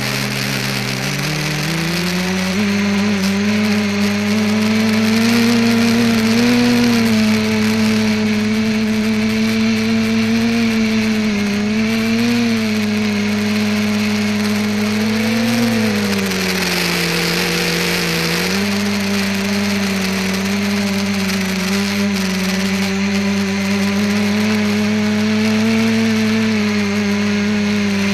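Multicopter's electric motors and propellers buzzing, heard from a camera mounted on the craft. The pitch climbs over the first two seconds as the throttle comes up, then wavers with throttle changes and dips briefly past the middle before steadying.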